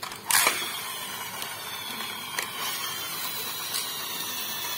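Friction motor of a plastic toy monster truck whirring as its wheels spin freely, the whine falling slowly as the flywheel winds down, after a plastic clack near the start.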